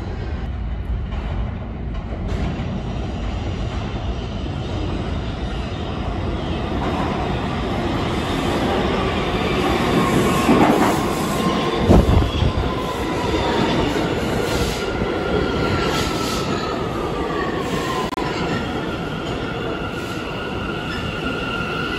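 New York City subway train pulling into an underground station: a steady rumble that grows, heavy clacks of wheels over the rail joints about halfway through, then squealing and a whine that slides down in pitch as it brakes to a stop.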